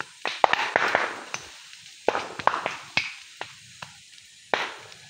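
Burning bamboo and brush in a forest fire crackling, with a dozen or so sharp, irregular pops and cracks.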